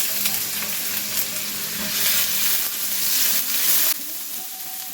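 Chopped ginger and garlic sizzling as they fry in hot sesame oil in a pan. The sizzle grows louder about two seconds in and drops off about four seconds in.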